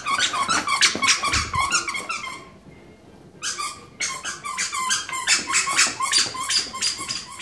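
Squeaky pig toy squeezed over and over in a dog's mouth: a rapid string of squeaks, about five a second, in two runs with a break of about a second between them.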